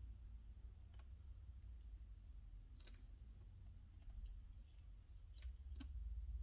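A few faint, scattered clicks and light taps of a small die-cast toy fire truck being handled and turned over, over a low steady hum.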